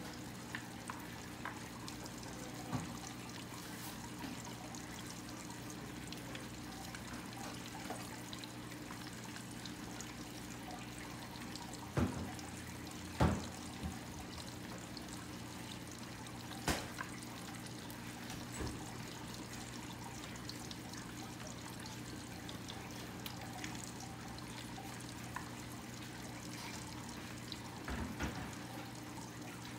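Pork belly deep-frying in hot oil under a glass lid: a steady sizzle with a few sharp pops, the strongest about twelve, thirteen and seventeen seconds in and again near the end. A low steady hum runs underneath.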